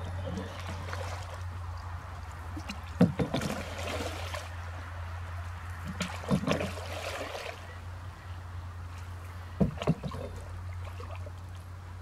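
Canoe paddle strokes in calm water: three strokes about three seconds apart, each a sharp knock as the blade goes in, followed by about a second of water rushing off the paddle, over a steady low hum.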